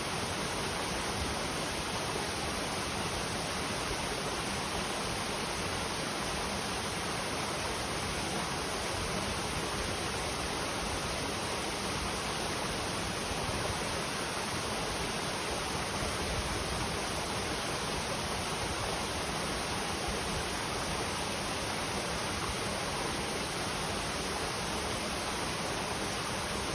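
A clear stream's water flowing, a steady, even rushing that does not change.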